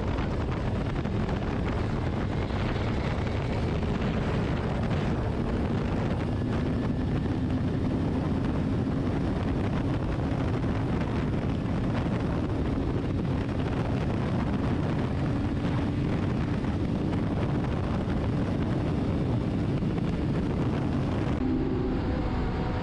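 Wind rush over the microphone mixed with a BMW inline-four superbike's engine cruising at highway speed; the faint engine note rises a little in pitch partway through. Near the end the sound changes abruptly to a clearer, steadier engine note with less wind.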